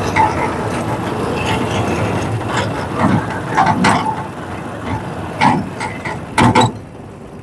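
Motorcycle engine of a bike trolley (a motorcycle converted into a three-wheeled cargo carrier) running as it drives slowly over rough ground. Several sharp knocks and clatters come in the second half, the loudest pair near the end, before the sound drops off.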